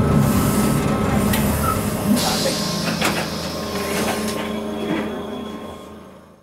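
Nagasaki Electric Tramway 1800-series streetcar heard from inside the driver's cab as it rolls along: a low motor and wheel rumble that eases over the first couple of seconds, with a few sharp clicks and knocks from the wheels on the rails. The sound fades out near the end.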